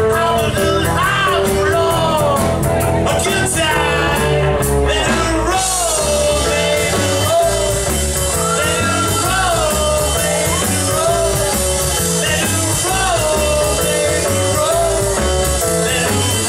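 Live rock band playing a blues-rock song: electric and acoustic guitars, keyboard and drum kit over a steady beat, with a lead melody bending up and down on top.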